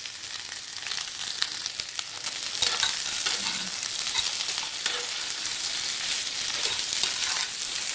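Oil sizzling in a kadhai as boiled, mashed potatoes are stirred into frying onions. A spatula scrapes and clicks against the pan now and then.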